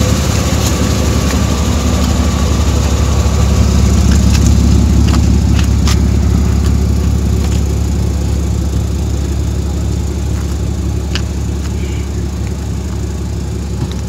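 Car engine idling, loud and steady, with a few sharp clicks over it.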